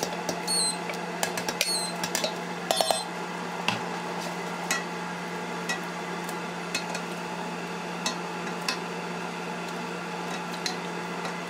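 Kitchen utensils scraping and clinking in a stainless steel pot. A spoon scrapes puréed roasted red peppers out of a glass bowl, with a few clinks in the first few seconds, then a spatula stirs the thick sauce with sparse light clicks against the pot, over a steady low hum.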